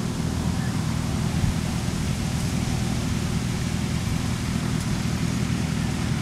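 Diesel engine of farm machinery running steadily at a constant speed, a continuous low hum.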